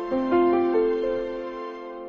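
Slow, gentle background music, with a few notes struck and left to ring over one another.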